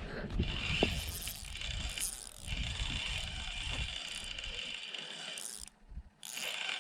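Fishing reel being cranked to bring in a hooked trout: a steady whirring clicking of the reel's gears that breaks off briefly near the end and then resumes.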